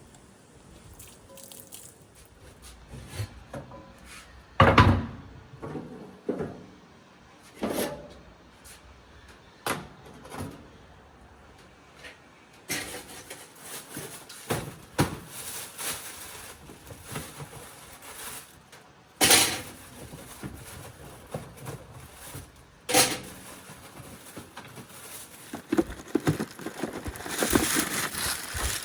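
Scattered knocks and handling noises of food preparation. The loudest are single sharp thuds about five seconds in and again around twenty and twenty-three seconds, over a soft hiss that sets in about halfway.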